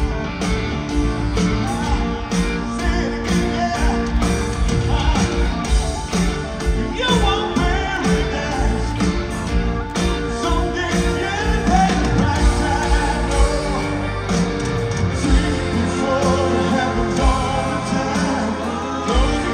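A rock band playing live in an arena, heard from the audience: drums, guitars and keyboards under a lead vocal, with regular drum hits and the singing standing out more from about seven seconds in.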